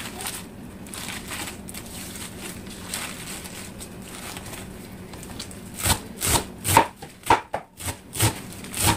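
Waterleaf leaves rustling softly as hands gather and press them into a bunch on a plastic cutting board. About six seconds in, a kitchen knife starts chopping them on the board in quick, sharp strokes, about three a second.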